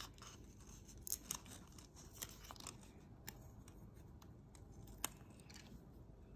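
Faint, scattered small clicks and taps of metal tweezers and fingertips handling a small plastic brick minifigure and its sticker.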